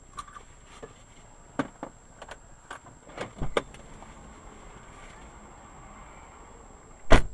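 Quiet stopped-car cabin with a steady faint high whine, scattered short clicks and knocks, and one loud thump about seven seconds in.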